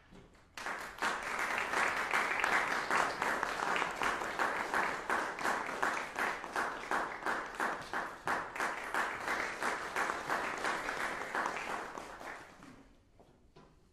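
Audience applauding: a dense patter of clapping that starts suddenly about half a second in, holds steady, and dies away about a second before the end.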